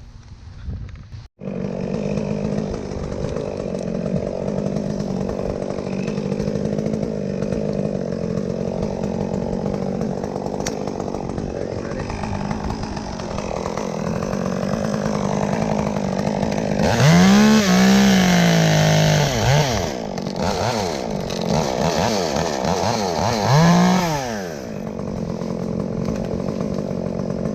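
Chainsaw engine running steadily, with its pitch rising and falling in two louder spells about two-thirds of the way through, as the saw is throttled up and loaded in cuts.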